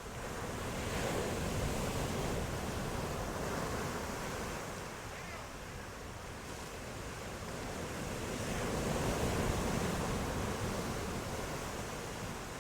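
Ocean surf: waves washing in twice, the rushing sound swelling, easing off, then swelling again near the end.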